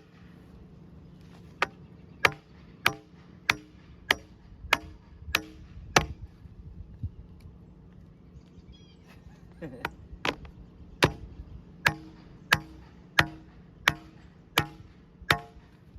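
Sharp knocks struck at a steady pace, about one and a half a second, each with a short ring. They come in two runs with a pause of a few seconds between them.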